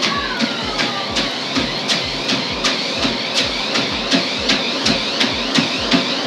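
Bare feet thudding on the running belt of a NewFit electric treadmill set to its top speed of 12 km/h, about three footfalls a second, over the steady running of its 2.0 HP motor and belt.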